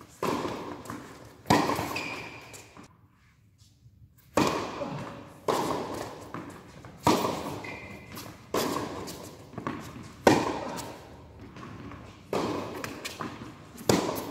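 Tennis ball being struck by rackets and bouncing on a hard indoor court: sharp pocks every second or two, each ringing on in the hall's echo.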